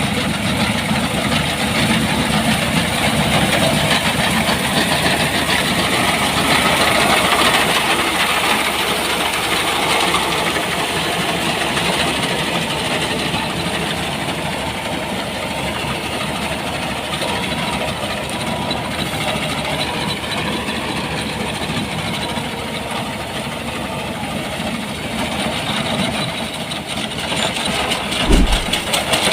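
Farm machinery engine running steadily during the wheat harvest, with a brief low thump near the end.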